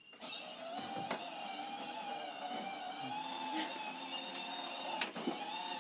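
Battery-powered ride-on toy car's electric motor and gearbox whining steadily as it drives, its pitch wavering slightly with the load, with a sharp knock about five seconds in.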